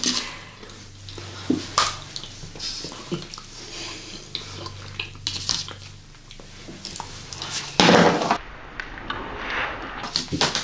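Close-miked chewing of chocolate eggs, with wet mouth smacks and small clicks and knocks of candy and fingers on paper plates. A louder burst comes about eight seconds in.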